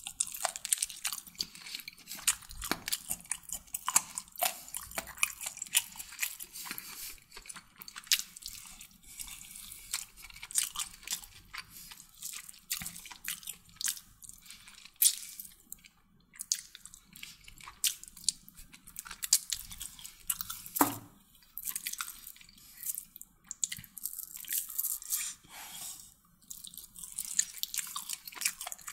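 Close-up chewing of chicken kottu, with many small sharp mouth clicks and smacks.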